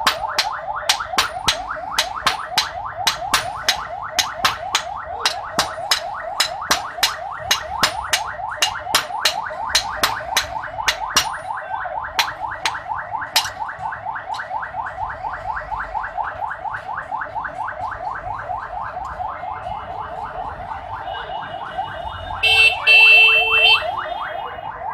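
Hammer blows on hot iron at the anvil, two or three sharp ringing strikes a second, thinning out and stopping about halfway through. Under them runs a fast squeaky rising whine that repeats about five times a second. A short, louder ringing sound comes near the end.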